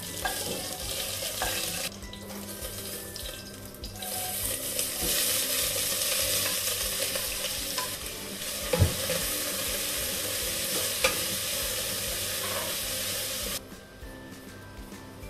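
Food frying in hot oil in a pan, a steady sizzle with stirring and a sharp utensil clank about nine seconds in. The sizzle eases for a couple of seconds early on and stops suddenly near the end, over quiet background music.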